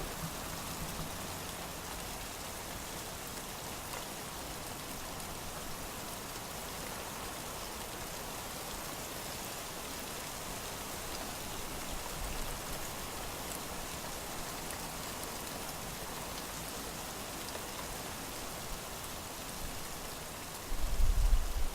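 Steady rain falling, an even hiss with no pattern. About a second before the end a loud low rumble sets in.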